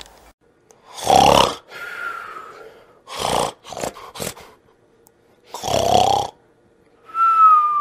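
Comic snoring: two rasping snores, each followed by a thin falling whistle on the out-breath, with a few short snorts in between.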